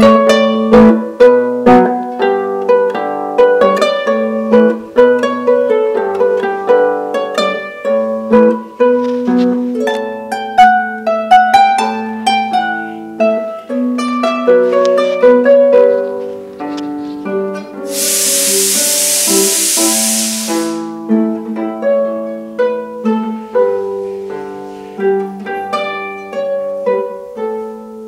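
Harp played by plucking: a flowing run of quick, ringing single notes over a repeated low note. About two-thirds of the way through, a rushing hiss lasts about three seconds.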